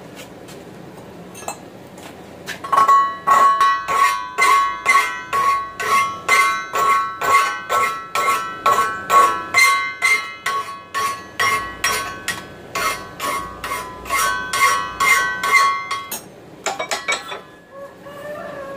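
Hand file stroking along the forged mild-steel handle of a steel frying pan, about two strokes a second, each stroke setting the pan ringing. The filing starts a couple of seconds in and stops near the end, followed by a few light clicks.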